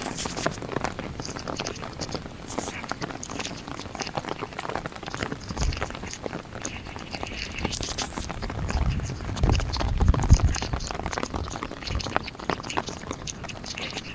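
Heavy rain pattering on a car, a dense crackle of drops, with a low rumble swelling about nine to ten seconds in.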